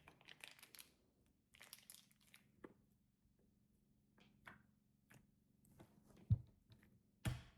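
Faint scattered crackles and ticks of slime and its packaging being handled, with two soft thumps near the end.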